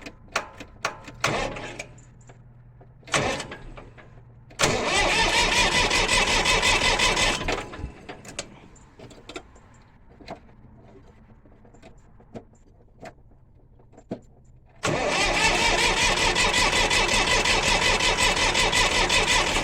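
International 484 tractor's starter motor being tried: several sharp clicks, then two long loud bursts of the starter running, about three seconds and then about five seconds, without the engine starting. The owner calls it a clicky starter motor and suspects dirt in its connections.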